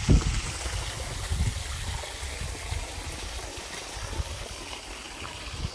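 Wind buffeting the phone's microphone in gusts, with a steady hiss of open air.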